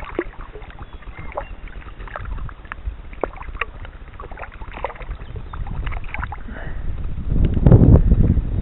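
Small splashes and drips of lake water around a hand releasing a rainbow trout at the surface, a scatter of light ticks and plops. A louder low rumble swells about seven seconds in.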